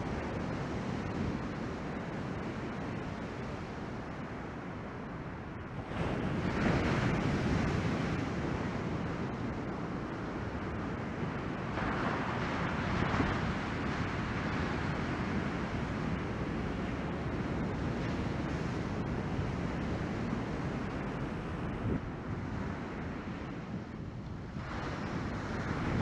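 Ocean surf from chest-high typhoon swell breaking and washing onto the beach: a steady rushing wash that swells louder about six seconds in and again around twelve seconds, with wind buffeting the microphone.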